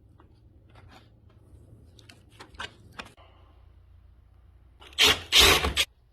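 A few light clicks and taps, then a loud rasping scrape in two quick pushes about five seconds in, lasting under a second.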